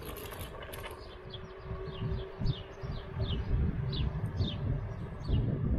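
Birdsong of short falling chirps, about two a second, over the low rumble of an electric kick scooter riding along and a steady hum.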